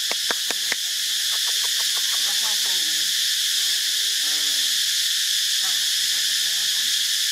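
Steady high-pitched drone of forest insects, even throughout. A quick run of sharp clicks in the first second, and faint wavering calls beneath the drone.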